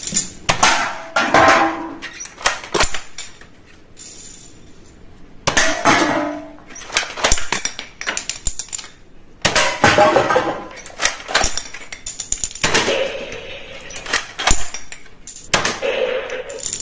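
Hard plastic toy guns clattering and clacking as they are handled, with many sharp knocks and clicks and a few stretches of rushing noise.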